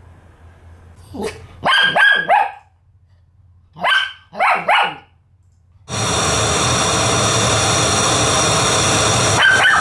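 Dog barks in two quick groups of about three, then from about six seconds a loud, steady, hiss-like noise that starts abruptly, with one more short call near the end.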